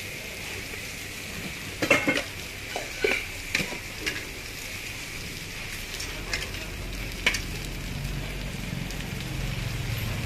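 Chicken thighs and a meat patty sizzling on a hot flat-top griddle, with a few sharp metallic clicks and clinks from steel tongs, mostly between about two and four seconds in. A low rumble rises in the second half.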